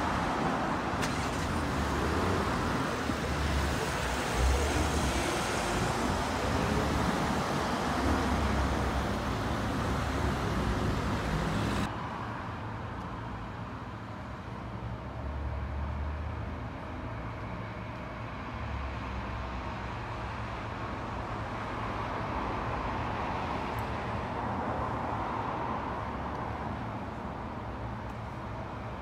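City street traffic noise around trolleybuses, with low vehicle rumbles coming and going. About twelve seconds in it cuts to a quieter, steady street background.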